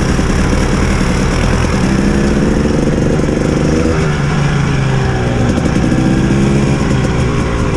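Off-road motorcycle engine being ridden, its pitch rising and falling several times as the throttle is opened and eased.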